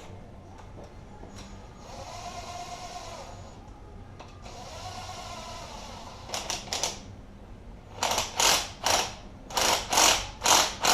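A hand ratchet is worked in quick strokes, about two a second and getting louder over the second half, as it runs down a bolt on a 6.0 Powerstroke diesel's cylinder head. Earlier come two short stretches of whirring. The bolt turns hard because it is pushing a valve open against the camshaft.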